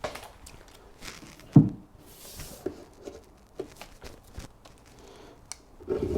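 Light handling noises of timber stair parts: scattered small knocks and rustles, with one louder wooden knock about a second and a half in.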